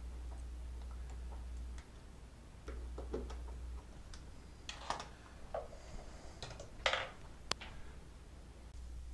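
Wired GFCI outlet and its stiff wires being pushed back into a metal electrical box by hand: scattered small clicks and plastic-on-metal scrapes, two louder scraping rustles past the middle and one sharp click a little after.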